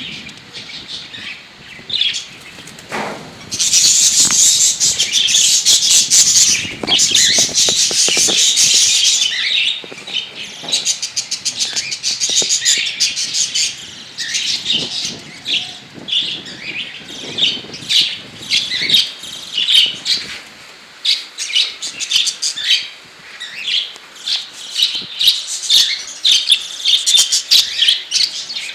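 Pet budgerigars and cockatiels chirping and chattering together. A loud stretch of dense, continuous chatter runs from about four to nine seconds in, followed by many short, separate chirps.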